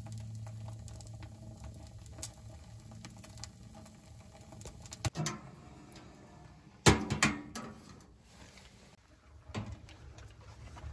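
Small wood fire catching in a Winnerwell tent stove: kindling crackling with scattered small clicks, and two louder knocks about five and seven seconds in.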